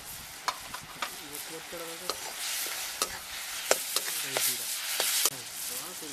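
A steel skimmer stirs frying onions and tomatoes in a steel kadai, knocking and scraping against the pan in a string of sharp clinks. The frying sizzle swells from about halfway through and cuts off suddenly near the end.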